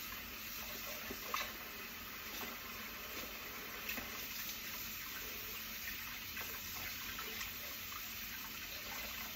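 Beaten eggs frying in butter in a pan: a steady sizzle with a few small crackles.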